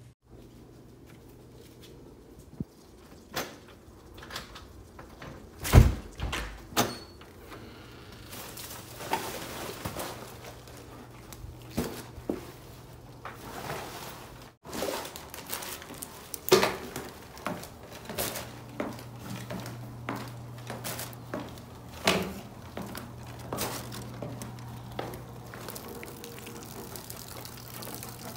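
A run of irregular knocks, thumps and handling noises with footsteps as a person carries trash through a house and works a door; the loudest thump comes about six seconds in. A low steady hum sits underneath.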